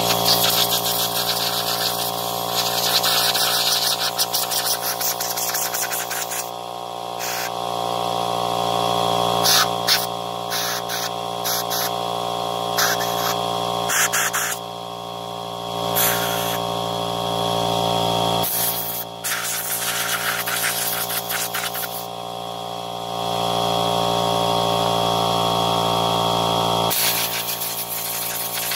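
A compressed-air blow gun hissing in short blasts and longer bursts as it blows dust out of a chainsaw's air filter and engine housing. A steady motor hum runs underneath.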